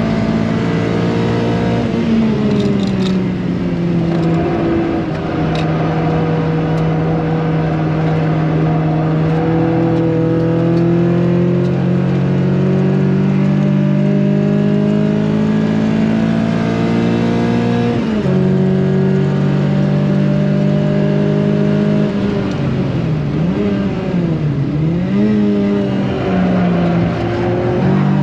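Renault Clio's engine lapping a circuit, heard from on board and loud throughout. The revs fall a couple of seconds in, climb slowly under power, drop sharply at a gearchange about eighteen seconds in, then dip and rise twice near the end.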